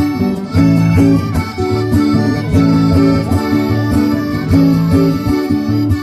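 Accordion and acoustic guitar playing an instrumental passage without singing. The accordion holds chords over the guitar's regular strokes.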